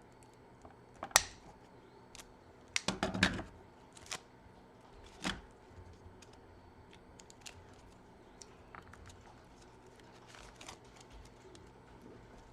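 Sharp snips and clicks of cutters working into a battery module's wiring harness, the densest run of them about three seconds in, then faint scattered ticks of handling the wires.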